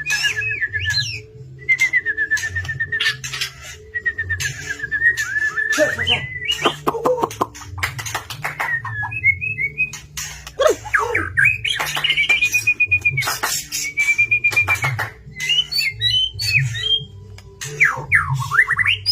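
White-rumped shama (murai batu) in full song: a long run of varied whistles and trills, with harsh rapid chattering notes about six seconds in and a string of clear whistled phrases in the middle. Low background music runs under it.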